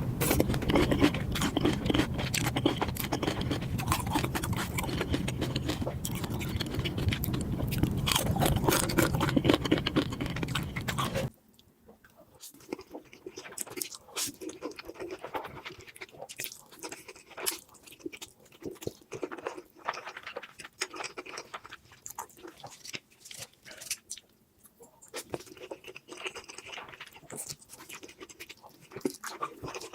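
Close-miked chewing and crunching of food. About 11 seconds in the level drops abruptly, and the rest is quieter, scattered mouth and chewing sounds.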